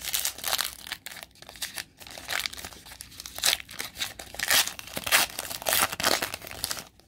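Foil wrapper of a 2019 Diamond Kings baseball card pack crinkling and tearing as it is ripped open by hand, in a run of irregular crackles.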